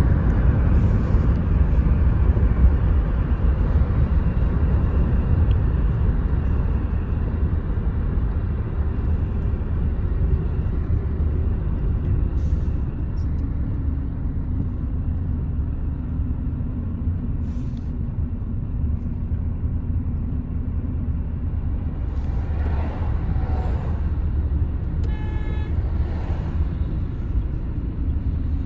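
Steady low rumble of a moving car's engine and tyres heard from inside the cabin. A short beep sounds once, about three-quarters of the way through.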